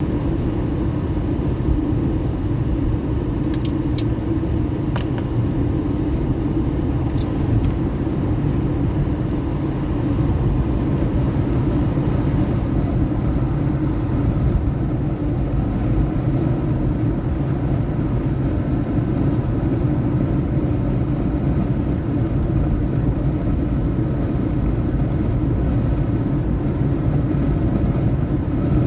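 A car driving through city streets, giving a steady low rumble of engine and road noise. A few short sharp clicks come a few seconds in.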